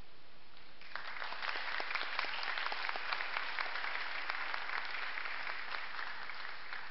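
Church congregation applauding, starting about a second in and continuing.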